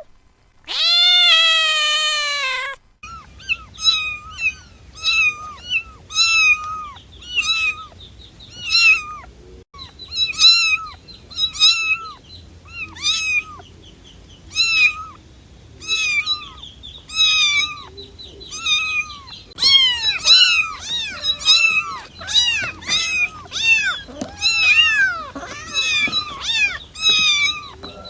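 Cats meowing: one long drawn-out meow, then a long run of short, high-pitched mews about one a second, becoming denser and overlapping as several cats call together in the last third.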